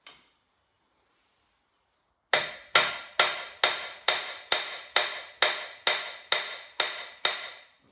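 Steady hammer blows on the steel differential housing of a Steyr CVT tractor's front axle, about a dozen ringing metal strikes at roughly two a second, starting a couple of seconds in. They are knocking the diff loose so it can come out of the axle casing.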